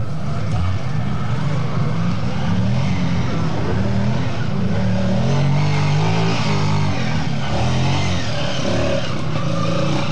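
Trials motorcycle engine revving, its pitch rising and falling repeatedly as the rider works the throttle through a muddy woodland section.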